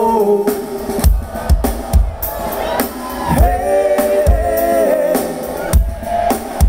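Live country-rap band playing, with sung vocals over a drum kit whose kick drum lands about once a second.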